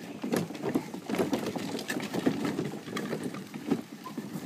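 Little Tikes Cozy Coupe plastic ride-on car being pushed backwards over bumpy grass and dirt, its hollow plastic wheels and body knocking and rattling irregularly.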